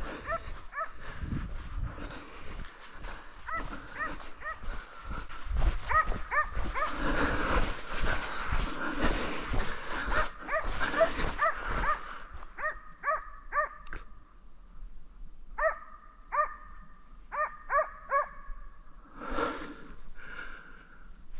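Dogs barking repeatedly. For about the first twelve seconds the barks come thick and fast over a rushing noise. After that they thin out to separate barks in quick runs of two or three.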